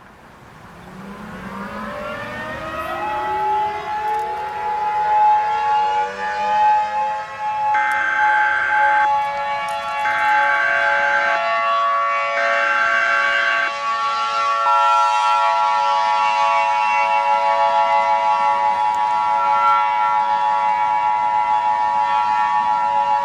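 A civil-defense-style siren winds up from a low pitch to a steady tone over the first few seconds. Over it, three short bursts of Emergency Alert System header data sound about a second apart, beginning around eight seconds in, and then from about fifteen seconds in the steady two-tone EAS attention signal, which announces the government alert that follows.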